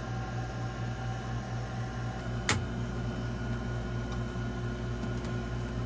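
A steady low mechanical hum with one sharp knock about halfway through.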